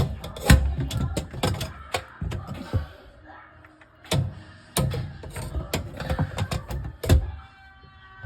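Hard plastic dishwasher parts knocking and clicking against the tub as they are fitted back into place at the bottom: a string of irregular sharp knocks, the loudest about half a second in and about seven seconds in.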